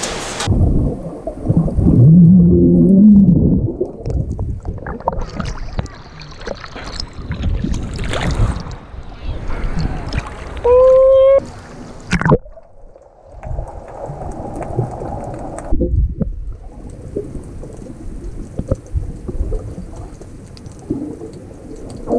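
Water sloshing and gurgling around an action camera in its waterproof housing as a swimmer moves at the surface and underwater, with muffled splashes. The sound changes abruptly several times, and a short, loud pitched tone sounds about eleven seconds in.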